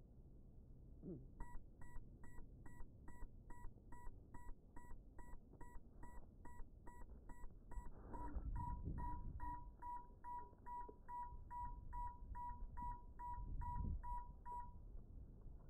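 An FPV drone's lost-model beeper sounds a steady train of short, even beeps, a little over two a second, which marks a downed quad lying in the grass. Rustling and handling noise swell twice, and the beeping stops near the end as the drone is picked up.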